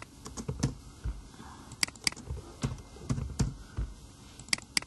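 Typing on a computer keyboard: irregular keystrokes, a few of them sharper clicks.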